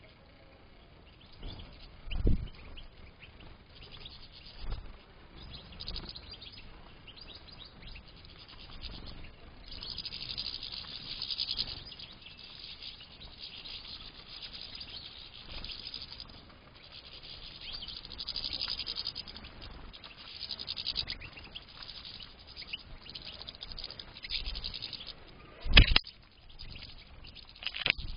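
European goldfinches chirping and twittering on and off, in high bursts. Two sudden thumps cut through, a smaller one about two seconds in and the loudest one near the end.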